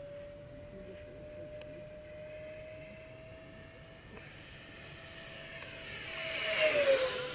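Electric ducted-fan RC jet (ParkZone Habu with a 70 mm ten-blade Change Sun fan on a 2700 kV Ammo inrunner) whining steadily in flight, the pitch creeping up. It then swells into a close pass about six and a half seconds in, the pitch dropping as it goes by.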